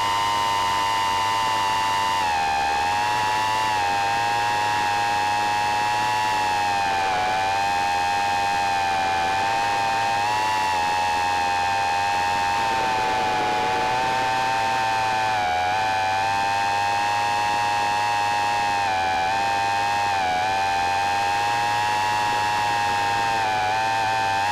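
Micro quadcopter's electric motors whining steadily in flight, one high pitched tone with its overtones, wavering slightly up and down in pitch.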